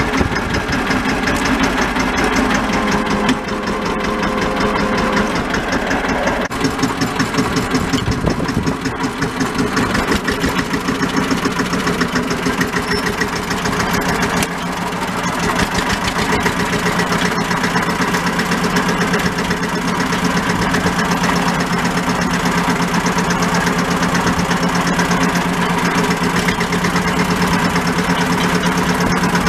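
1964 Deutz D15 tractor's single-cylinder air-cooled diesel engine running as the tractor is put in gear and driven off, heard from the driver's seat. Its note shifts during the first few seconds, then runs steady.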